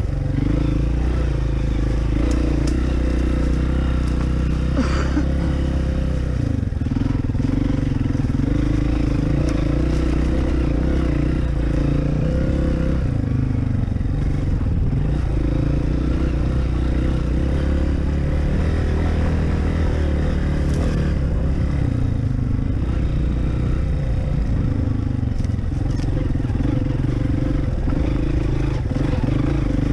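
Honda CRF230F dirt bike's single-cylinder four-stroke engine running at low trail speed, its note dropping and rising a few times as the throttle changes. A few faint clicks over the engine.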